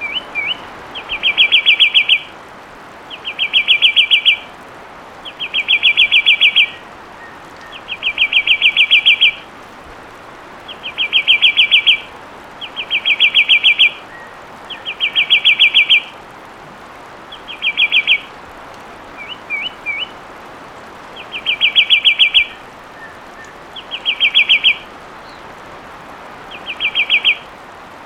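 Fulvous wren singing: fast trills of rapid whistled notes, each about a second long, repeated roughly every two seconds, with a few short upslurred whistles in between.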